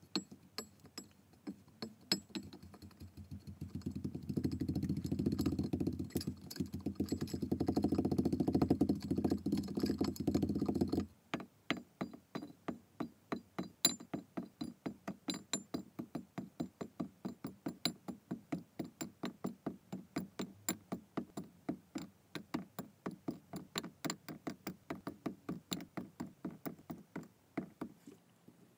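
Kinetic sand in a glass being pressed with a wooden muddler: dense crunching with many small clicks, which stops abruptly about eleven seconds in. Then a long, even run of light ticks, about four a second, as small cubes and balls of kinetic sand drop into the glass one after another.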